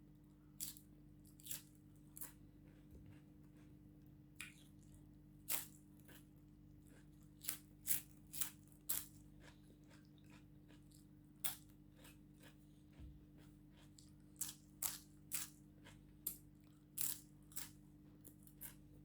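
Close-miked crunching and chewing of crispy food: sharp, irregular crunches, sometimes two or three within a second, over a steady low hum.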